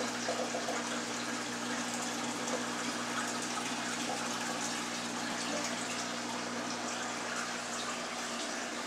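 Water rushing steadily through a 220-gallon saltwater aquarium's sump system, with a steady low hum underneath.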